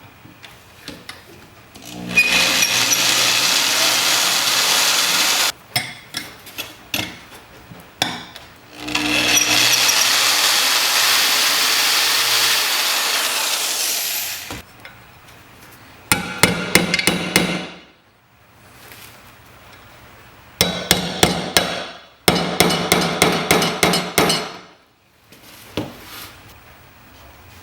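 Hand and power tools working on the parts of an old metal slide projector during its restoration. There are two long stretches of steady abrasive noise with a few clicks between them, then three short bursts of quick, repeated strokes.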